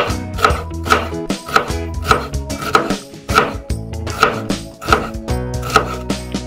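Chef's knife chopping an onion on a wooden cutting board, a steady run of sharp chops about two a second, with background music underneath.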